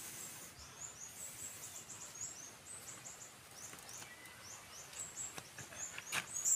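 A small bird's high, thin chirps, short falling notes repeated a few times a second over faint outdoor background hiss, with a couple of sharp clicks near the end.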